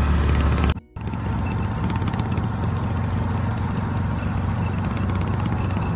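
Steady engine and road noise of a moving vehicle, heard from inside the cabin. About a second in, the sound drops out briefly, then carries on with a slightly different low hum.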